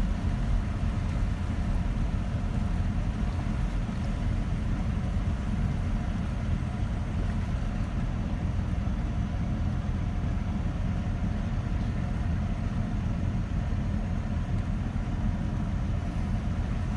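Car driving through floodwater: a steady low rumble of engine and tyres in water.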